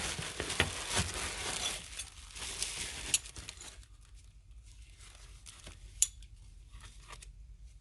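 Crinkling and rustling of packing wrapping as hand tools are unwrapped from a box, then a few light clicks and one sharper click about six seconds in.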